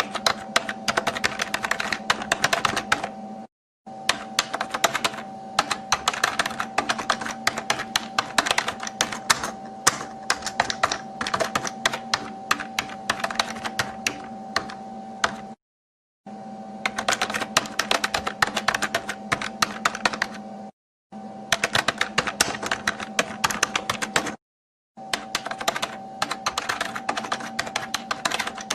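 Fast, continuous typing on a computer keyboard: a dense patter of key clicks over a steady hum. It breaks off into short gaps of dead silence four times.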